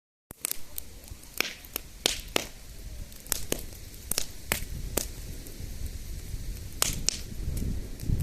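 Campfire crackling, with sharp pops at irregular intervals over a low steady rumble.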